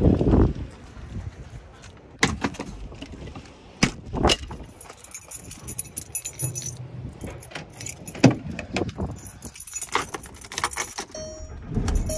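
Car keys and a remote fob jangling in hand, amid clicks and knocks of car and camper doors being handled, with one sharp knock about eight seconds in. A short steady tone sounds near the end.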